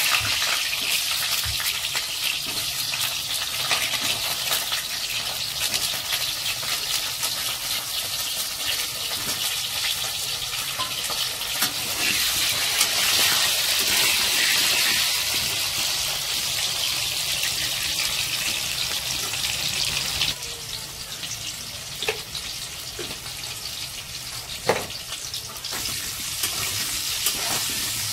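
Potato chunks sizzling and crackling as they fry in hot oil in an aluminium kadhai, turned with a steel spatula that gives a few sharp taps against the pan. The sizzle swells in the middle and eases off a little about twenty seconds in.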